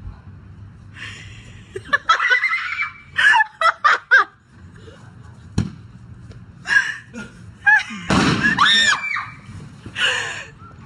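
One sharp bang of a small lit explosive charge going off, about halfway through, between bursts of high, excited shouting and screaming voices; loud screaming follows the bang.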